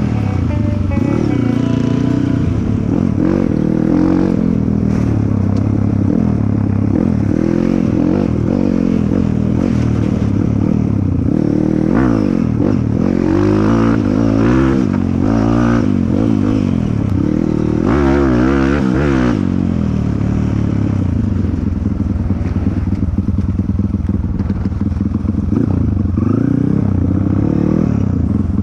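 Dirt bike engine running hard off-road, its revs rising and falling over and over, with a stretch of quick throttle blips in the middle.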